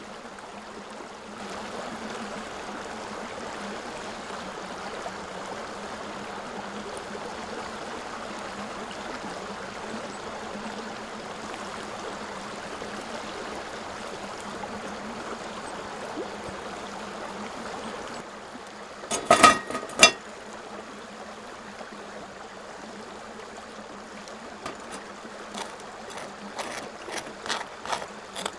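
Hot water pouring in a thin, steady stream from a gooseneck kettle onto coffee grounds in a paper pour-over filter, for about sixteen seconds. Then two sharp knocks, and near the end a run of light clicks and scrapes of a knife spreading butter on toast.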